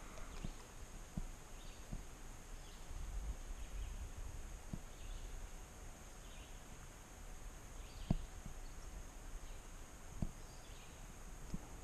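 Scattered light knocks and bumps against a kayak hull while fishing, the loudest about eight and ten seconds in, over a faint steady high-pitched drone and a few faint chirps.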